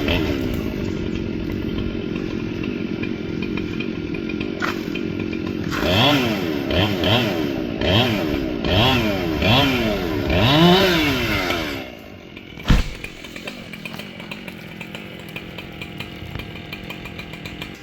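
Two-stroke chainsaw running steadily, then revved up and down about five times in quick succession. Near two-thirds of the way through it drops away to a much lower level, with one sharp knock shortly after.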